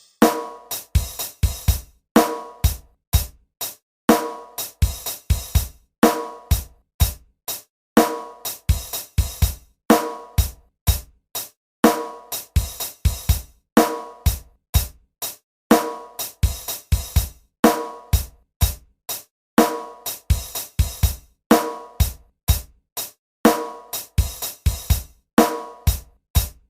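Drum kit playing a repeating beat of kick drum, snare and hi-hat hits through a sound system, checking the kick drum's sound. The same group of hits comes round about every two seconds.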